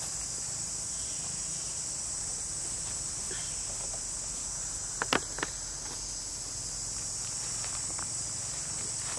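Steady high-pitched chorus of insects, with a quick cluster of three or four sharp clicks about five seconds in.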